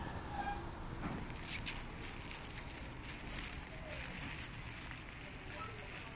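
Stray cats eating dry cat food: a dense, continuous crackle of crunching kibble that starts about a second in.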